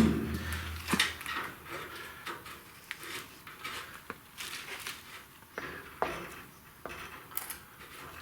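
Metal parts and tools being handled on a workbench: light clinks and taps every second or two, after a louder knock with a short ring right at the start.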